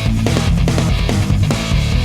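Background music: heavy rock with distorted electric guitar and a driving drum beat.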